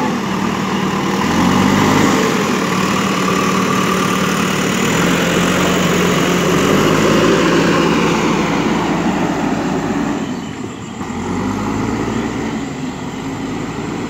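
JCB backhoe loader's diesel engine running under load as the front bucket pushes and levels sand, its engine speed rising and falling. The sound briefly drops about ten seconds in.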